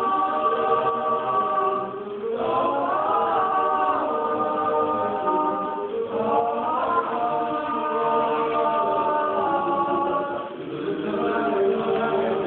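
Mixed high school choir singing a cappella, holding sustained chords that shift to new harmonies every few seconds, with a short breath-like dip about ten seconds in.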